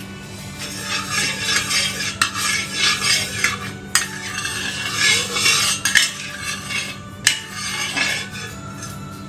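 Metal spatula scraping and clinking against a pan as food is stirred, with a few sharp clanks along the way.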